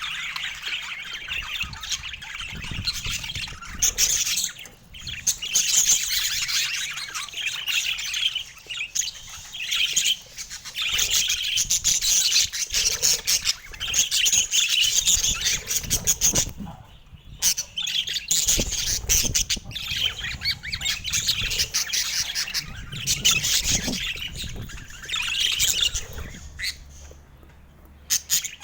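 Budgerigars chattering and warbling, a busy run of chirps and squawks with a few brief pauses.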